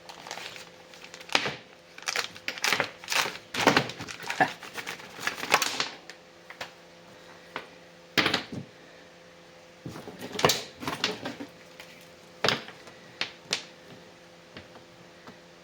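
Motorcycle throttle cables and their metal end fittings being handled on a workbench: irregular clicks and light knocks, in a busy run of them and then a few scattered ones.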